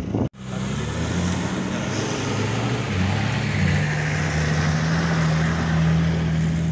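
4x4's engine running hard under load up a steep sandy slope. The revs waver for the first few seconds, then hold steady, with a haze of noise over the engine. The sound cuts out for an instant just after the start.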